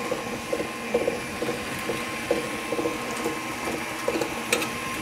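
Electric mixer running steadily with a thin motor whine, its beaters churning unevenly through a bowl of butter, brown sugar and eggs as they are creamed into batter.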